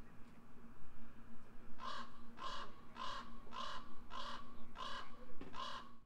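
A crow-like bird cawing seven times in a row, about two calls a second.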